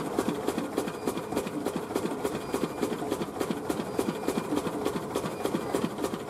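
Poha-making machine running, its rotating arm and pounder churning rice grain around the pan with a fast, steady clattering rattle.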